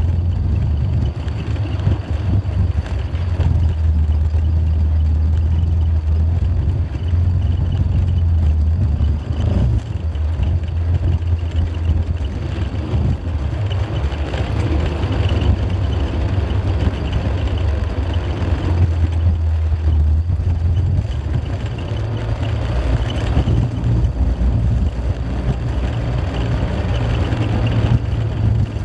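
A car driving along, with steady engine and road noise and a strong low rumble throughout.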